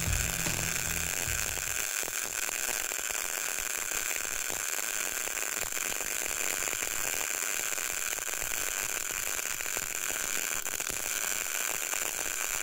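CO2 semi-automatic (MIG) welding arc with solid wire, running at about 160 amps on a vertical fillet weld in steel plate. It gives a steady crackling hiss throughout. At this current the weld penetrates deep and the bead overlaps, which the welder judges far too hot for a 5 mm leg.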